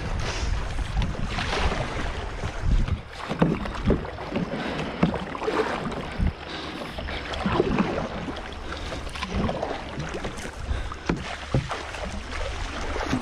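Kayak paddling on a shallow river: the paddle blades dip and splash every second or so while river water rushes and laps against the plastic hull, with wind rumbling on the microphone.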